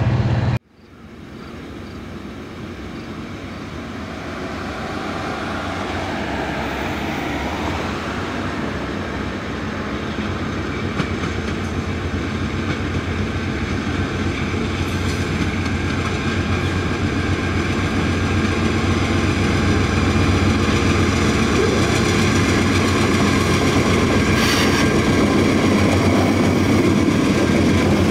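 Diesel freight locomotives approaching at the head of a container train. The engine rumble grows steadily louder as they draw near, after a short dropout right at the start.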